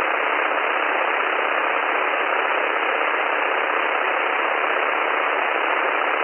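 Steady hiss of an aircraft radio and intercom audio feed, cut off above and below the voice band, with no speech on it.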